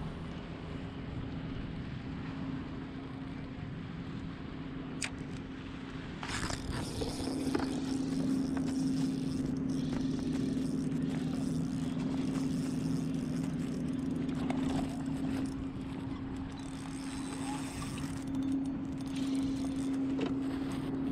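A kayak's motor humming steadily at one unchanging pitch as it drives through choppy water. Water splashes against the hull and wind hits the microphone, louder from about six seconds in.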